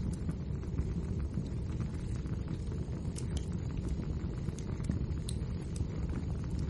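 Wood fire burning in a fireplace: a steady low rumble of flames with frequent small crackles and a few louder pops.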